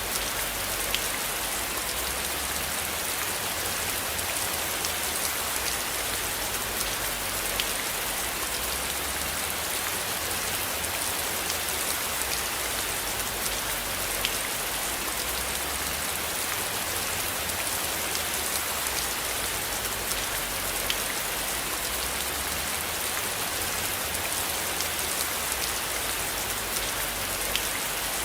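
Steady rain falling, an even hiss with occasional sharper drop ticks standing out every few seconds.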